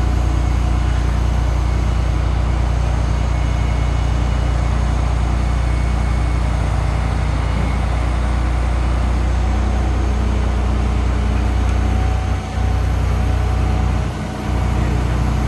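A vehicle engine running steadily with a deep, even hum that dips briefly twice near the end.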